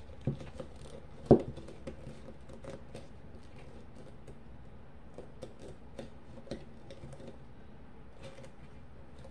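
Hands fitting a finished diamond-painting sheet around a plastic cup insert: soft rustling and small clicks, with one sharp knock about a second in.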